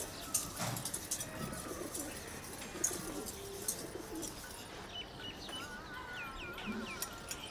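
Pigeons cooing softly, and from about five seconds in a small bird gives a quick run of short, high chirps. A few faint clinks of metal pots being washed come early on.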